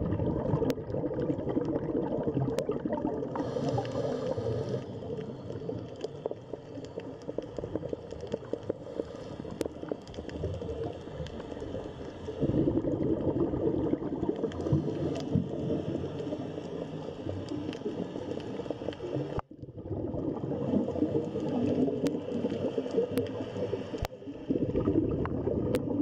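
Underwater sound picked up by a camera in the sea: a steady bubbling, gurgling rush of water with scattered sharp clicks. It jumps in level about halfway and drops out for a moment about three-quarters through.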